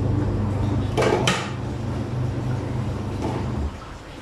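A steady low hum that cuts off suddenly near the end, with two sharp knocks about a second in, like a pot or cupboard being handled at a kitchen stove.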